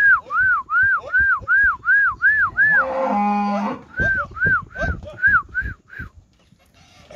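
Cattle in a pen: a calf moos once, held for under a second, about three seconds in. Around it come two runs of a high, whistle-like call that rises and falls about three times a second, the second run fading out near the six-second mark.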